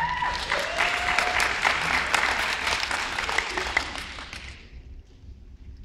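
Audience applause, many hands clapping together, dying away about four and a half seconds in.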